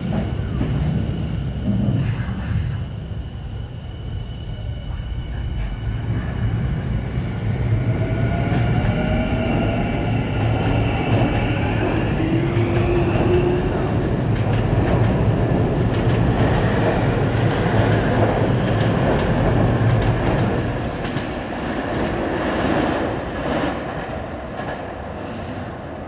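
Tokyu Toyoko Line electric commuter train pulling out of the station: its motors whine, rising in pitch as it picks up speed, over a steady rumble of wheels on rail that swells as the cars roll past and then fades as the train leaves.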